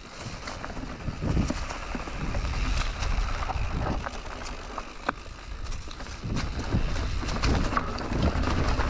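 Canyon Neuron full-suspension mountain bike ridden over a rough trail of dry leaves and stones: tyres rolling, with scattered sharp clicks and knocks from the bike over the bumps and wind rumbling on the microphone.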